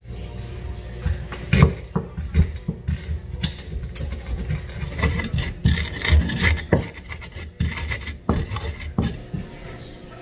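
Wooden pestle crushing and grinding red chilies and garlic in a wooden mortar (Indonesian cobek and ulekan) for sambal bawang: irregular wood-on-wood knocks with grinding between them.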